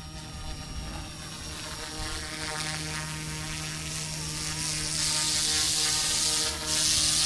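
Small electric GOOSKY S2 RC helicopter in flight: a steady motor and rotor hum with a high blade hiss that builds from about two seconds in and is loudest near the end.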